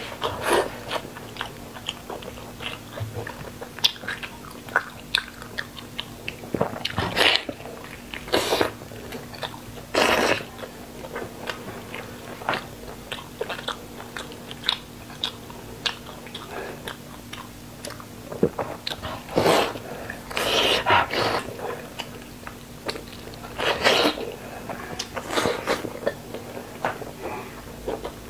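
Close-miked eating of soft, gelatinous braised meat: wet chewing, smacking and biting sounds at irregular intervals, with a handful of louder bites and slurps spread through.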